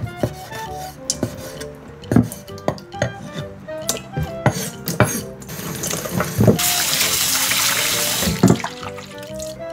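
Scattered knocks and clicks of a knife on a wooden cutting board and of pieces handled in a stainless steel bowl. From about halfway in, a kitchen tap runs into the steel bowl for about three seconds while sea squirt pieces are rinsed, then stops.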